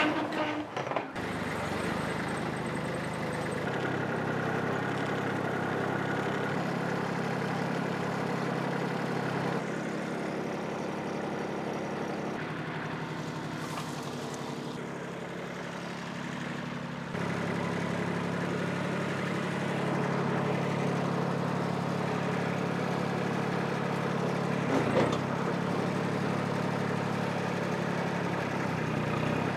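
Compact tractor engine running steadily, its speed stepping up and down a few times. At the very start, a garage door rattles up.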